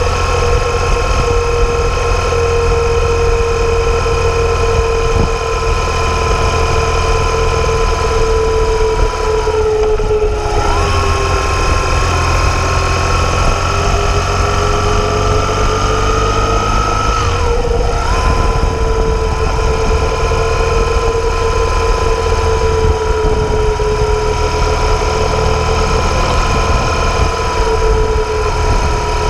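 BMW R 1200 GS flat-twin boxer engine running at low town speed, heard from on the bike: a steady drone. The engine note drops sharply about ten seconds in, climbs slowly, then drops sharply again near eighteen seconds.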